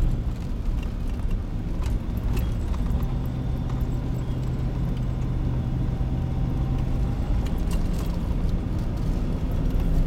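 A car driving on a packed-snow road, heard from inside the cabin: a steady low engine and tyre rumble with a few light knocks and rattles.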